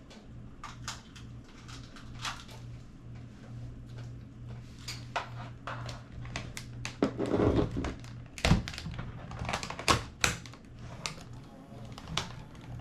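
Irregular plastic clicks and knocks from handling a Sony CCD-TRV41 camcorder while fitting its battery pack and working its controls, with a louder scraping clunk about seven seconds in and sharp knocks soon after, over a low steady hum.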